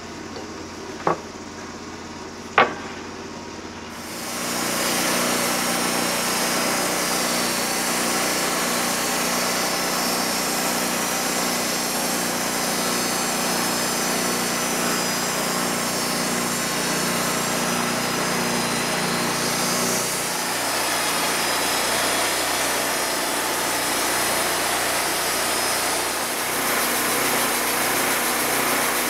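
Wood-Mizer LT40 portable band sawmill running, its band blade cutting along an oak log with the engine under steady load. In the first few seconds there are two sharp knocks about a second and a half apart, before the louder cutting noise sets in about four seconds in.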